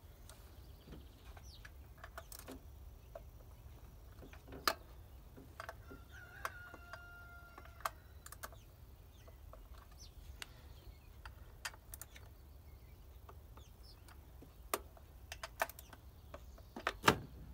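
Scattered sharp clicks and taps of a hand tool and metal engine parts being handled and fastened in a truck's engine bay, the loudest pair near the end. A short, steady squeak-like tone sounds about six seconds in.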